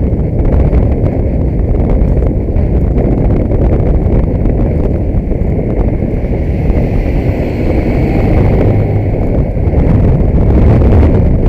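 Inside a moving car, a steady rumble of road and engine noise with a constant fine rattle, picked up by a dashboard camera. It grows a little louder near the end.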